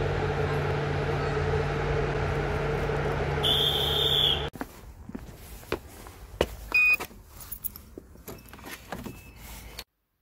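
A train running past a station platform with a loud steady rumble and hum, and a high beep for about a second near its end. It cuts off suddenly and gives way to quieter clicking and handling sounds with a short beep, then silence near the end.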